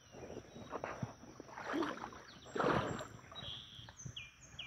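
Creek water swishing and sloshing in a few surges as someone wades through the shallows, the loudest surge about two and a half seconds in.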